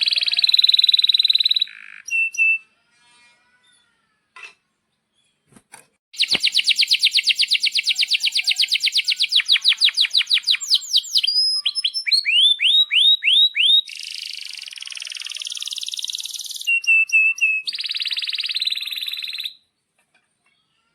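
Male domestic canary singing: a short burst of song, a few quiet seconds, then a long rapid rolling trill followed by a run of sweeping whistled notes and buzzy phrases, which stops shortly before the end.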